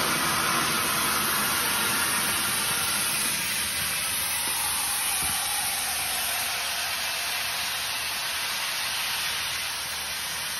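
Compressed air from a firefighter's breathing-air bottle hissing steadily through an inflation hose into an inflatable rescue boat's tube, easing a little as the tube fills. A faint tone slides downward midway.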